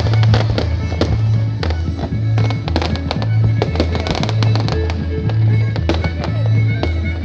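Fireworks going off in a rapid run of pops, bangs and crackles, over background music with a steady two-note bass line.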